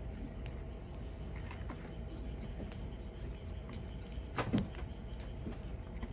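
Firewood burning: a steady low rush from the fire with scattered sharp crackles and pops, and one louder pop about four and a half seconds in.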